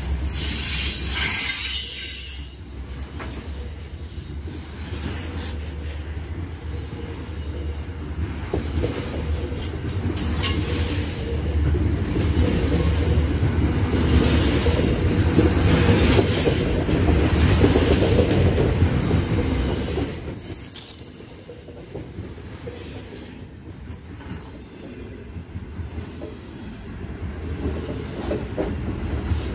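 Freight train of grain hopper wagons rolling past, steel wheels rumbling on the rails. It gets louder through the middle and eases off about two-thirds of the way through.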